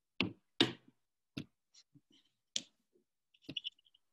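A handful of sharp clicks at irregular spacing, the first two the loudest, then a quick run of small clicks about three and a half seconds in.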